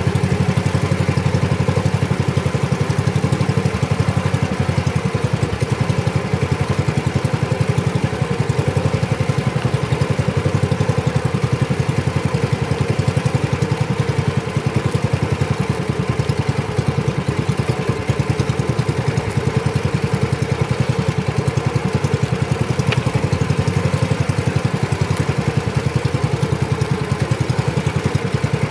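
Engine of a small motorised outrigger fishing boat running steadily with a fast, even chug while the boat is under way.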